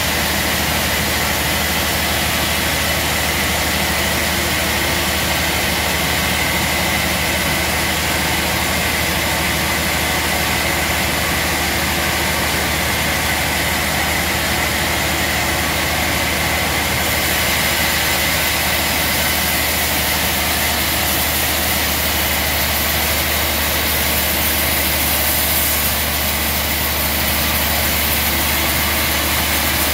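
Large sawmill band saw running steadily while its blade cuts through a gnarled wood slab: a constant loud machine drone with a steady high whine, the hiss growing a little brighter about halfway through.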